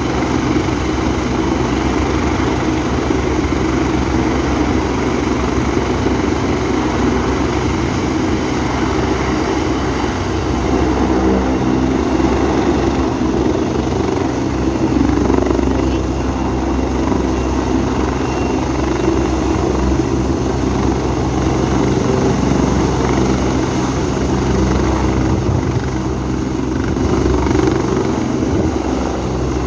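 Helicopter hovering low and descending to land, its rotors and turbine engines making a steady, loud, deep sound.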